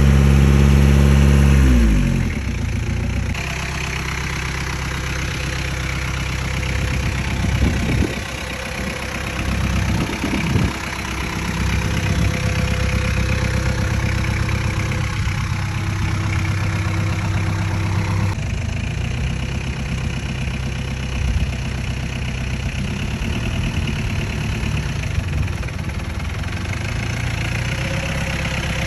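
Jeep Willys engine running at low revs. For the first two seconds it is louder and deeper, and its pitch drops. A couple of brief knocks come around a third of the way in.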